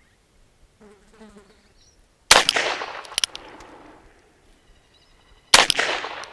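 Two shots from a Ruger Wrangler .22 LR single-action revolver, about three seconds apart, each a sharp crack with a short echo. Each is followed under a second later by a light click.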